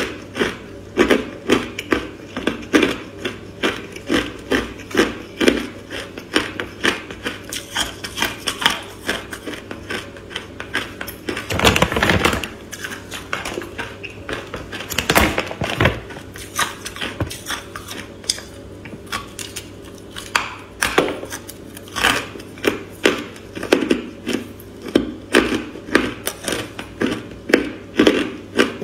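Hard frozen ice pieces coated in green matcha-style powder being bitten and crunched between the teeth close to the microphone, in quick sharp crunches about two a second. Two bigger, longer crunching bites come about 12 and 15 seconds in.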